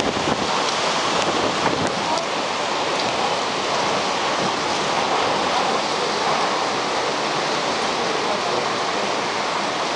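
Cyclone wind and heavy rain: a loud, steady, dense rush of wind-driven rain.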